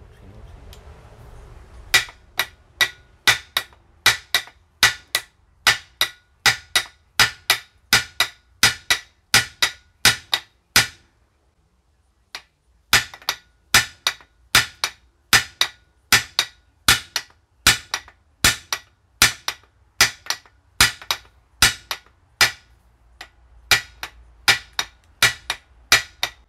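Steel hammer striking a Welch plug into the top of a Citroën 2CV front suspension arm, about two blows a second with a metallic ring, pausing briefly near the middle. The blows flatten the plug to seal the end of the kingpin housing.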